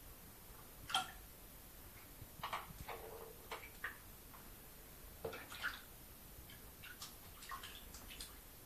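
Light, irregular taps and clicks of a ping pong ball being batted about a bathtub by kittens, coming in small clusters, with the sharpest single click about a second in.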